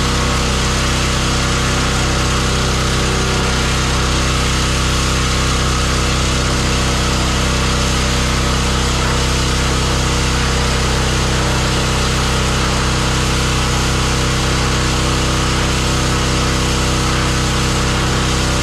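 Pressure washer running steadily without a break.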